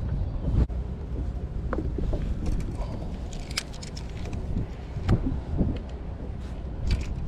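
Strong wind buffeting the microphone as a steady low rumble, with a few scattered knocks and clicks from fishing gear and the boat.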